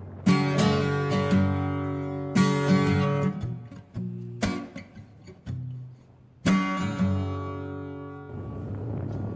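Acoustic guitar strumming chords, one ringing strum about every two seconds that fades out, with lighter picked notes between.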